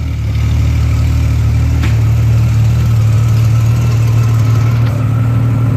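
Honda Gold Wing GL1500's flat-six engine idling steadily through stock mufflers with their valves cut off and end caps fitted, giving a loud exhaust note with too much bass.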